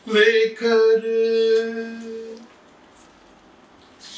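A man singing a naat (a devotional song in praise of the Prophet Muhammad) unaccompanied. He draws out the word "lekar" on one long held note that stops about two and a half seconds in, leaving only quiet room tone.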